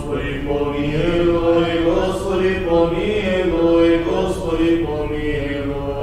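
A solo male cantor chanting a vespers hymn in long, held notes that move step by step between pitches.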